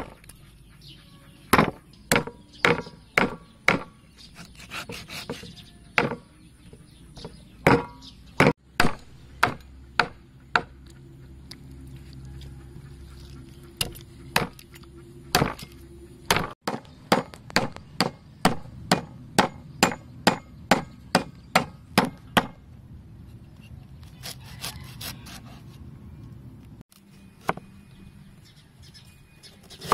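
Cleaver chopping on a thick round wooden chopping block: a long run of sharp knocks, about one or two a second, as it cuts through oxtail joints and then through galangal root.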